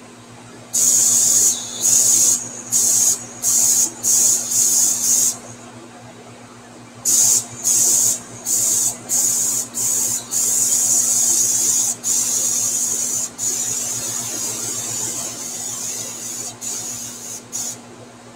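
Airbrush spraying paint in short hissing bursts as the trigger is pressed and released, with a pause of about two seconds in between. From about ten seconds in it sprays in longer, steadier passes with only brief breaks.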